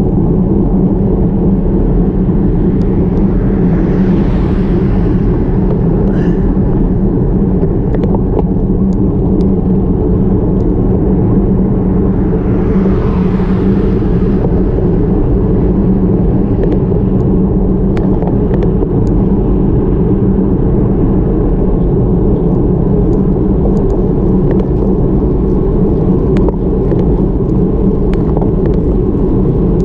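Steady low rumble of wind and road noise on the microphone of an action camera mounted on a road bike climbing at speed. Two brief swells of higher hiss come about 4 and 13 seconds in, with scattered small clicks.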